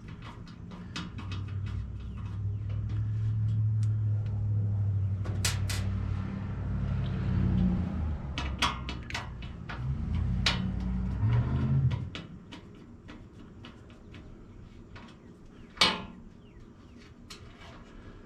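Whirlpool top-load washing machine running with a low hum for about eleven seconds, then cutting off suddenly. This is the noise it makes while failing to wash, with light clicks throughout and a single sharp knock near the end.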